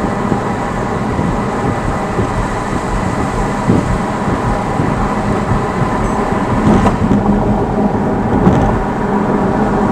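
Steady in-cabin noise of a car driving: engine hum and tyre rumble on the road, with a few light knocks.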